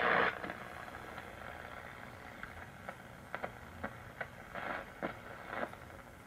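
Shortwave static from a 1937 Philco 37-630 tube radio as it is tuned across its upper shortwave band. A loud station signal cuts off just after the start. Then comes a low, steady hiss broken by a run of short snatches of signals as the dial sweeps past them.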